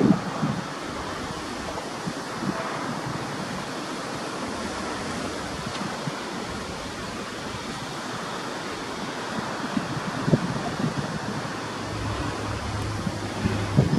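Wind buffeting the microphone in gusts over a steady rushing noise. Near the end a low steady drone comes in from a distant diesel freight locomotive approaching.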